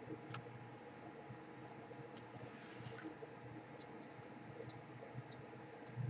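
Faint, scattered light clicks and ticks from small plastic and metal laptop parts (cooling fan, cable connectors) being handled, with a brief soft scrape about halfway through, over a steady low hum.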